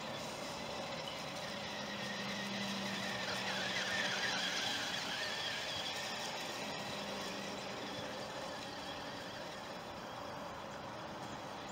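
Small electric motor and gears of a toy RC buggy (Adventure Force Burnout Buggy) whining as it drives over grass. It grows louder about four seconds in as the buggy passes close, then fades as it drives away.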